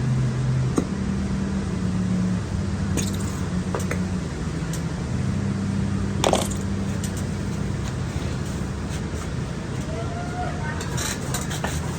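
Light clicks and taps of a spoon and plastic containers while slime ingredients are combined, over a steady low hum.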